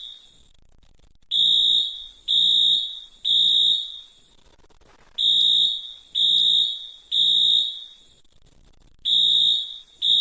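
Fire alarm beeping the temporal-three evacuation pattern: a high-pitched beep three times about a second apart, then a pause of about a second and a half, repeating.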